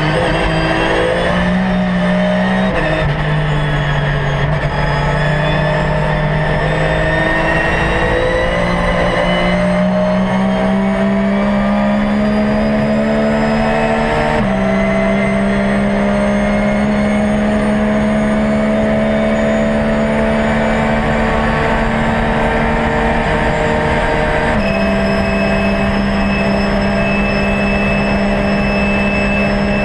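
In-cockpit sound of a Porsche 911 GT3 R's flat-six racing engine under load. The revs climb steadily through the gears, and the pitch drops sharply at each gear change: about 3 s in, about halfway, and again near the end, where it is in sixth.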